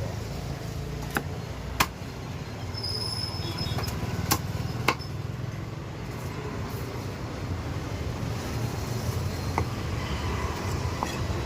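Sharp strikes of a knife or cleaver cutting fish on a block, four spaced knocks in the first five seconds, over a steady low rumble of road traffic.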